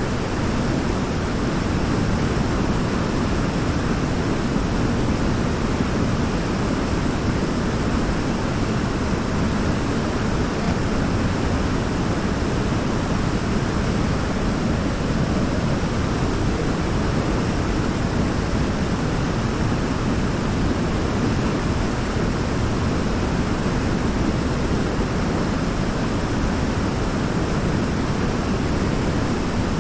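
River water pouring over a large rock in a small waterfall: a steady, even rush, heaviest in the low end.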